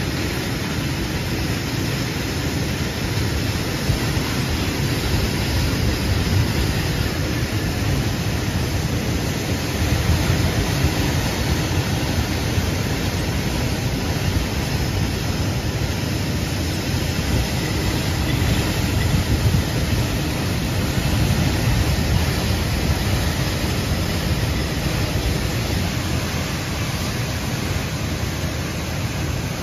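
A long train of empty steel sugarcane bins rolling past on 2 ft narrow-gauge cane railway track, a steady noise of steel wheels running on the rails.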